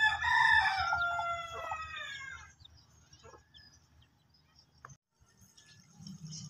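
A rooster crowing once, one long call of about two and a half seconds that sags slightly in pitch toward the end. Near the end a faint low rumble comes in.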